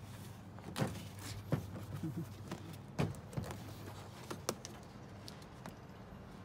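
Scattered clicks and knocks as the hard parts of an animatronic dog house kit are handled during assembly, about half a dozen sharp taps over a steady low hum.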